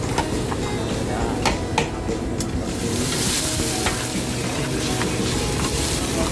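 Chicken frying in hot oil in a pan, sizzling steadily, with a few sharp clicks of a utensil against the pan in the first two and a half seconds. The sizzle turns louder and brighter a little under three seconds in.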